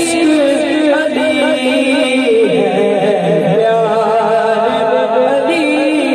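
A young man singing a naat into a microphone: a melodic vocal line with long held notes and ornamented turns, without percussion.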